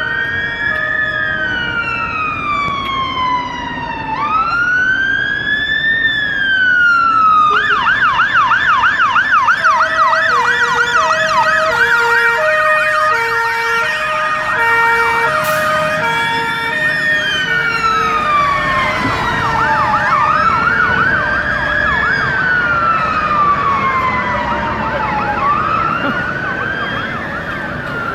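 Two fire engine sirens. A slow wail rises and falls every few seconds, then switches to a rapid yelp about seven seconds in. A low two-note tone alternates through the middle, and near the end two wails overlap out of step.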